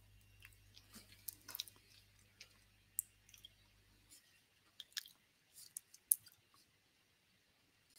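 Faint, irregular small clicks and crackles, over a low steady hum that cuts out about halfway through.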